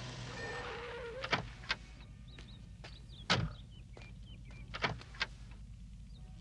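A delivery van's doors being shut and opened: a few sharp knocks, the loudest a little over three seconds in and two more near the end, with faint high chirps in between.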